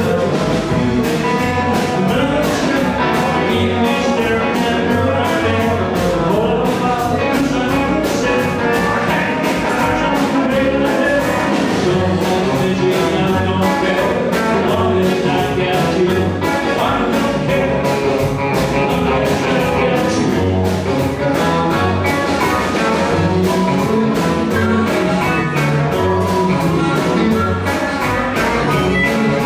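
Live blues and rock-and-roll band playing with a steady drum beat: electric guitars, upright double bass and drum kit, with a man singing.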